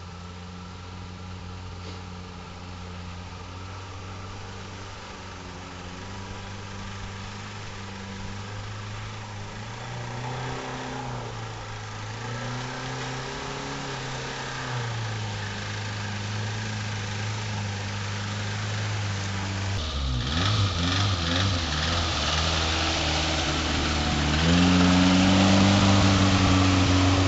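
Off-road 4x4's engine working through deep muddy water, revs rising and falling and growing gradually louder as it approaches. In the last few seconds, close by, splashing water and mud join in and the engine revs higher and louder.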